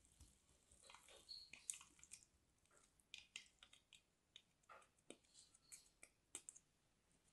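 Small clear soap pieces crunching and crackling as fingers press and rub them through the grid of a plastic fry cutter: soft, irregular clicks and crunches, many in quick succession.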